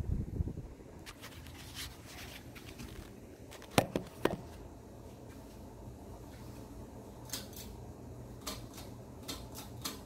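Harbor Breeze Bellhaven 52-inch ceiling fan running with a steady low hum. A low rumble fades out in the first second, two sharp clicks come about half a second apart a little under four seconds in, and lighter ticks come near the end.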